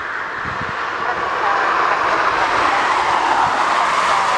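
Airbus A330-300's twin General Electric CF6 jet engines at takeoff power, a broad rushing jet noise that grows steadily louder as the airliner rolls down the runway.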